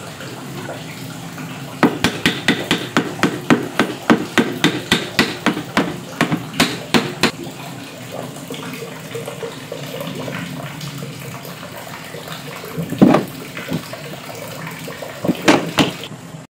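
Rapid series of sharp knocks on wood, about four or five a second, running for some five seconds, then a couple of louder single knocks near the end, over a steady hiss.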